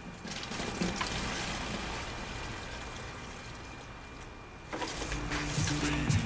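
Water pouring from a plastic bucket into a plastic jug, a steady splashing trickle for about four and a half seconds. About five seconds in, music with a beat starts.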